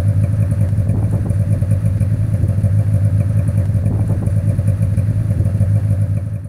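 Snowmobile engine running steadily with an even, low hum, cutting off suddenly at the very end.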